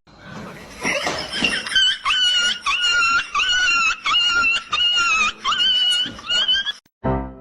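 An animal's high squeals repeated about twice a second for several seconds, after a noisy start.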